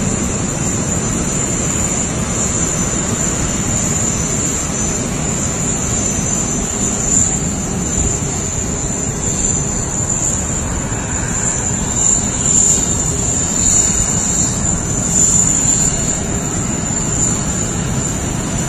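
Aircraft engine noise, a steady loud rush with a high, steady whine over it.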